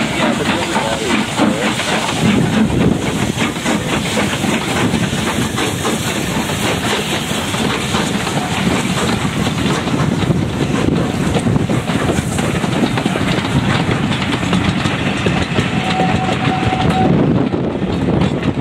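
Steam-hauled passenger train rolling by, with a steady clatter of wheels on the rails.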